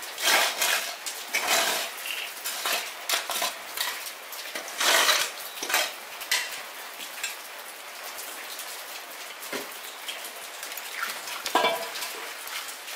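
Dishes and metal utensils clinking and scraping at irregular moments. It is busiest in the first six seconds, with a louder knock about eleven and a half seconds in.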